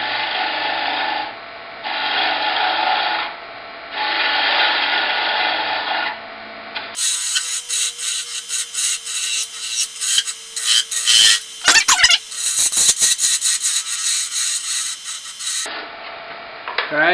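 A hand tool scraping and cutting deer antler spinning on a wood lathe, in three passes of a second or two each. About seven seconds in the sound turns sharper, with rapid clicking and scraping over a faint steady hum, until near the end.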